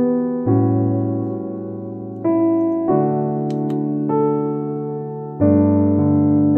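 Background music: piano playing sustained chords, a new chord struck every second or two.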